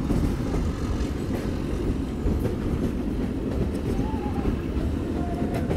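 Meter-gauge train running along the track: a steady low rumble of wheels and carriages on the rails, with a sharp click near the end.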